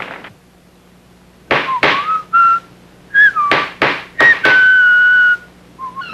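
A hammer knocking about seven times on wood, with short whistled notes between the blows and one long held whistled note near the end.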